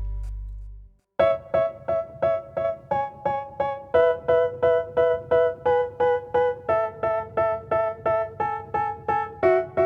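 Background music: after a low, buzzy sound fades out and a brief silence, an electric piano starts about a second in, playing a steady run of repeated notes, about three or four a second, its chord shifting every few seconds; the intro of a hip-hop track.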